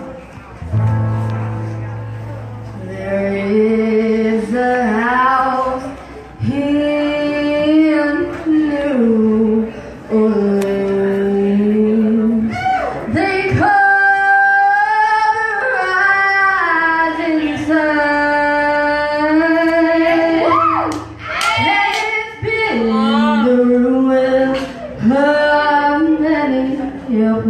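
A girl singing a song into a microphone, with acoustic guitar accompaniment. The singing comes in about three seconds in, after a few held instrumental notes.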